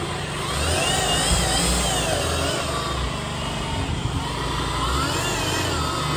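Dual-action polisher running while buffing polish on a car's painted hood. Its motor whine wavers up and down in pitch throughout.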